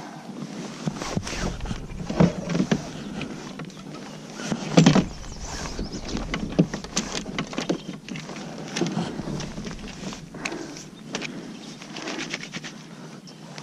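Irregular knocks and clatters of handling on a fishing kayak, the loudest about five seconds in, with a low wind rumble on the microphone through the first half.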